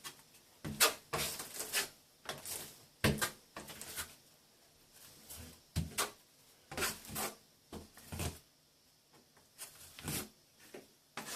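A plastering blade scrapes excess base coat off a plaster join in short strokes, about a dozen, coming irregularly with brief pauses between.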